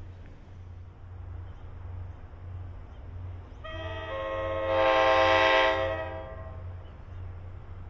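A locomotive air horn sounds one chord blast of about three seconds, swelling to its loudest midway, over a steady low rumble. It is the horn of an NJ Transit EMD GP40PH-2B diesel locomotive approaching on the Bergen County/Main Line.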